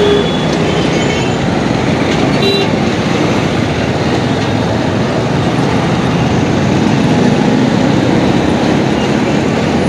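TVS motorcycle riding through slow city traffic, heard from a phone mounted on the rider's helmet: a steady rush of engine, wind and road noise. A brief high beep sounds about two and a half seconds in.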